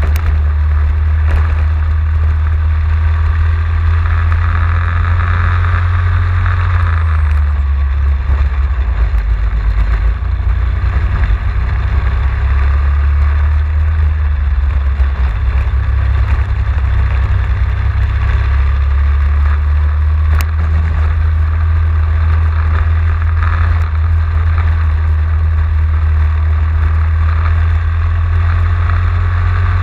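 Racing kart engine running hard at speed, heard from a camera mounted on the kart; the engine note drops and picks up again a few times through the lap.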